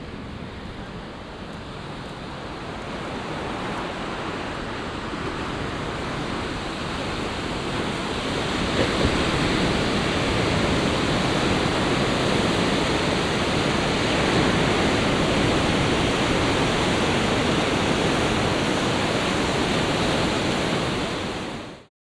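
Steady rushing noise of sea surf with wind. It grows louder over the first several seconds, holds steady, and fades out quickly near the end.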